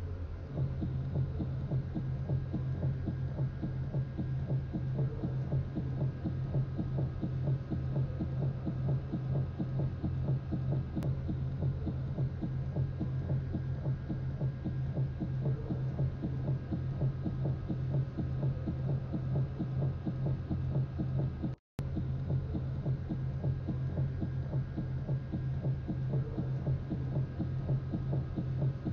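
A steady low throbbing hum with a fast, even pulse: a dark drone laid over the picture as the film's soundtrack. It cuts out for an instant about two-thirds of the way through.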